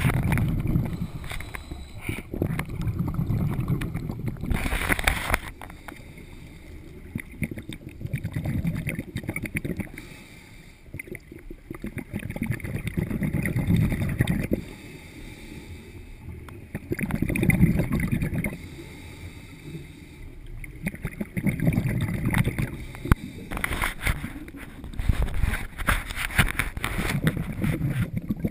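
Scuba diver breathing through a regulator underwater: a repeating cycle, every three to four seconds, of a short hiss on the inhale and a rumbling rush of exhaled bubbles.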